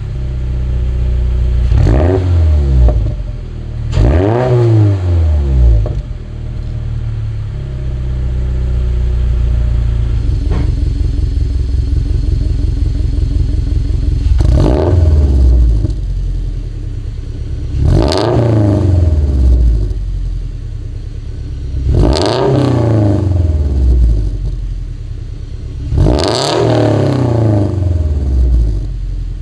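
A 2023 Subaru BRZ's 2.4-litre flat-four is free-revved twice from idle on its stock exhaust header. From about ten seconds in it runs through a catless JDL unequal-length header and HKS Hi Power single-exit catback: it idles with an uneven boxer rumble and is blipped four times, about four seconds apart.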